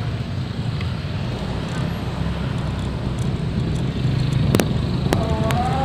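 Steady rumble of engine and road noise from a vehicle moving along a road, with some wind on the microphone. Near the end come two sharp cracks like firecrackers, about half a second apart, and then a held pitched sound starts.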